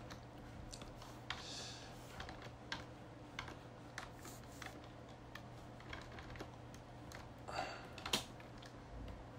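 Computer keyboard being typed on in scattered, irregular clicks, about a dozen, the loudest one near the end, over a faint steady low hum.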